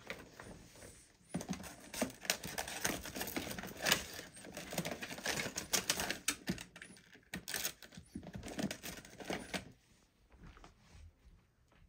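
Small brush scrubbing carbon fouling off the metal of a Colt Frontier Scout .22 revolver: a quick, irregular run of brushing strokes that dies away near the end.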